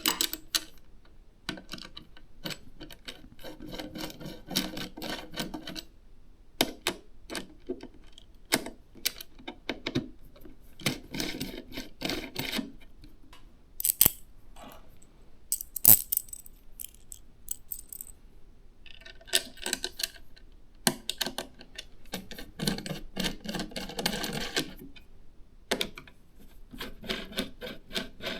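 Hands handling computer parts during a PC assembly: many sharp clicks and taps, with stretches of rustling and scraping a second or two long.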